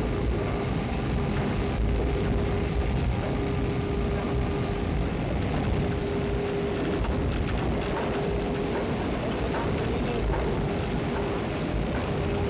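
Hauling winches and their steel cables drawing a blast furnace along: a steady heavy rumble with a steady whine that drops out briefly now and then.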